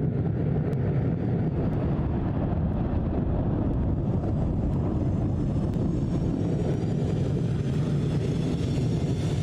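Mount Merapi's crater giving off a loud, steady, deep roar. It is the volcano's noise grown considerably, a sign of rising activity just before the group evacuates the rim.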